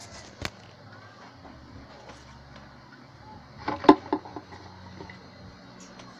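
A single click, then a quick cluster of sharp knocks about four seconds in, over faint steady room noise: handling noise while the recording is being set up.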